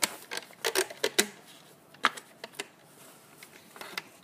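Sharp clicks and snaps of rubber bands and a plastic hook against the plastic pegs of a rubber band loom as a finished charm is pulled off: a quick run of clicks in the first second and a half, then a few more spaced out.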